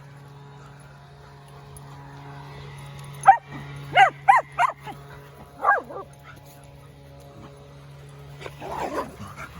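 Dogs barking in play: about six short, high barks bunched together in the middle, over a steady low background hum.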